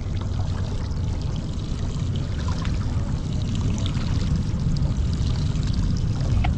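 Steady rush and splash of water with a low rumble underneath, and a few small clicks scattered through it.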